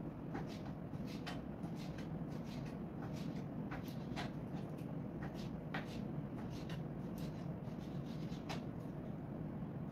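Kitchen knife slicing goat liver on a plastic cutting board: irregular sharp taps of the blade hitting the board, about two a second, over a steady low hum.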